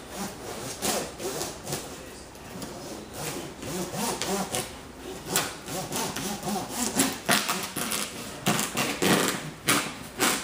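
A hand saw cutting through a wooden piece in uneven back-and-forth strokes, the strokes coming faster and louder near the end.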